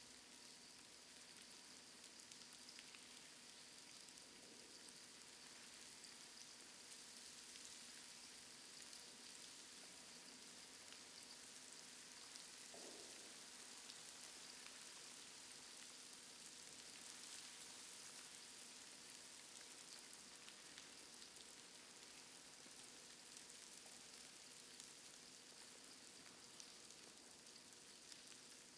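Near silence: a faint steady hiss with a fine crackle.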